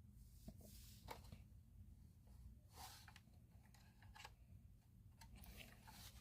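Near silence: faint room tone with a low steady hum and a few soft clicks and rustles of handling.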